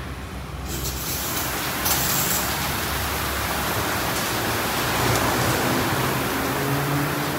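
D&S IQ Express ST in-bay automatic car wash running over the car, a steady loud rushing noise that grows sharply louder about half a second in.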